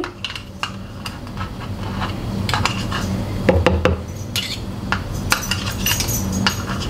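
A metal kitchen utensil clinking and scraping against a dish or container, in a run of light, irregular knocks, over a steady low hum.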